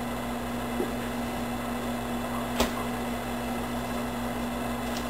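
Steady low electrical hum, with one sharp click about two and a half seconds in.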